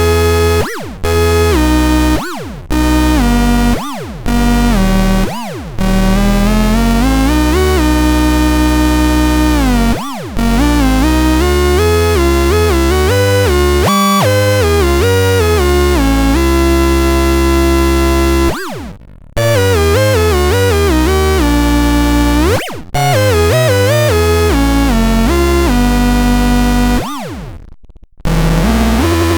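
Synthesizer playing sustained, buzzy notes and chords over a heavy bass, many sounds opening with a quick swooping pitch sweep. The sound breaks off briefly every few seconds as it moves from one patch or phrase to the next.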